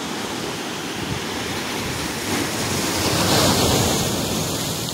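Sea waves breaking and washing over the rocks of a seawall, a steady surf hiss that swells as a wave crashes, loudest about three and a half seconds in.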